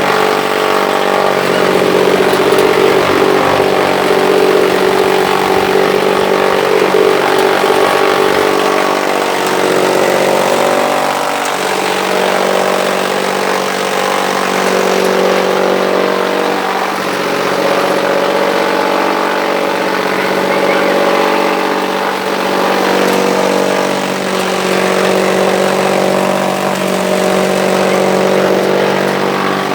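Apew Hurricane chaff cutter (silage chopper) running at speed: a steady machine hum made of several held tones over a rushing noise. Through roughly the first ten seconds there is an irregular clatter of knocks, and the pitch wavers slightly at times.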